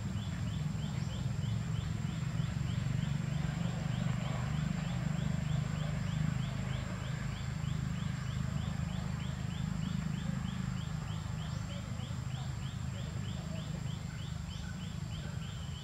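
Outdoor ambience among trees: a steady low rumble, with a quick high chirping repeating about three times a second and a thin steady high-pitched tone.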